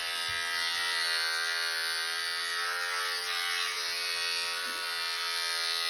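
Electric dog grooming clippers running with a steady buzz while trimming a puppy's fur.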